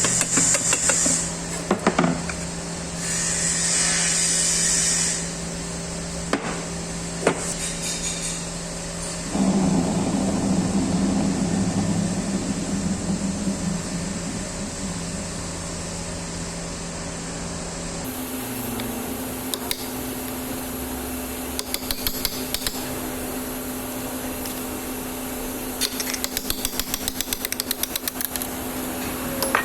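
Hand-tool work on metal: scattered knocks and taps, a short high hiss, and a few seconds of steady scraping or rubbing noise, over a steady low hum. Near the end comes a quick run of clicks, several a second.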